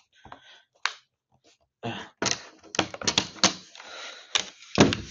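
Plastic case clips of an HP Chromebook 11 G5 snapping into place as the chassis halves are pressed back together: a run of sharp clicks, sparse at first, then quicker, with the loudest snap near the end.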